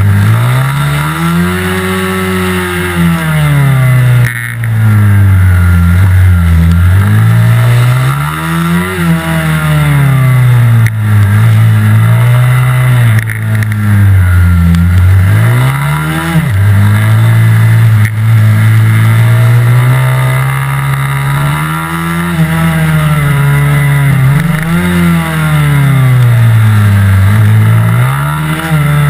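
Mini-motard motorcycle engine heard from on board, revving up and dropping back over and over as the bike accelerates out of corners and slows into them, with a stretch of steadier speed past the middle.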